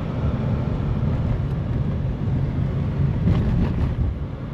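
Steady engine and road-tyre rumble of a car driving along.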